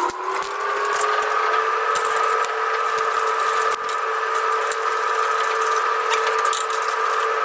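A small electric motor running at a steady, even pitch after spinning up, with light clicks and rattles over it.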